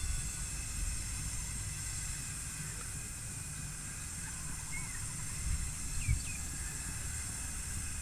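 Outdoor pasture ambience: a steady high hiss over a low rumble, with a couple of short bird chirps about five and six seconds in and a soft thump near six seconds.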